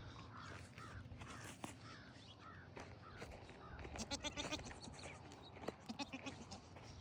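Faint, short high bleats of newborn goat kids, repeated several times in the first few seconds, with some rustling and clicks of handling about four seconds in.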